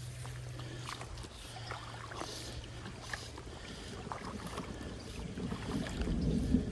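Creek water sloshing and splashing around a wader playing a hooked smallmouth bass, with scattered small ticks, growing louder near the end.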